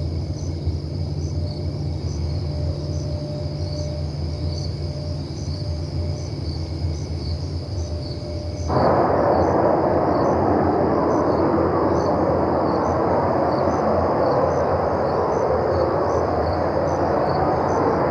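A steady low rumble with a faint held tone, which about nine seconds in jumps abruptly to a louder, rushing roar; faint crickets chirp evenly throughout. The uploader takes it for strange roaring from the sky, like missiles flying.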